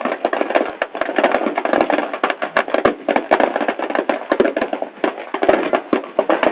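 Large wood bonfire burning hard, with dense, irregular crackling and popping, many cracks a second.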